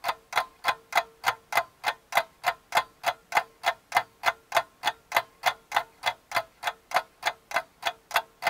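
Rapid, evenly spaced clock-like ticking, about three ticks a second, over a faint steady hum.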